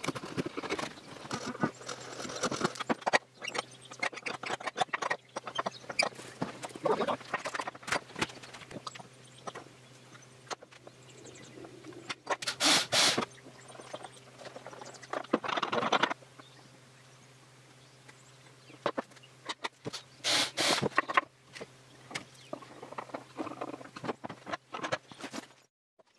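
Hand-tool woodworking sounds: a steel chisel paring and scraping wood, then a hand screwdriver turning screws into hardware, with irregular taps, clicks and scrapes throughout. Twice a short, loud rasping noise stands out, and a steady low hum runs underneath.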